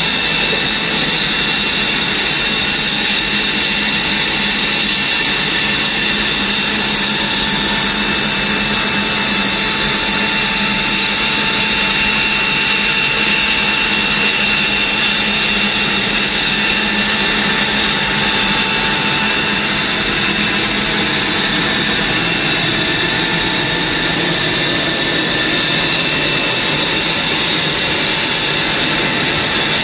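Aircraft jet turbine running steadily on the ramp: a loud, even rush with several high whining tones.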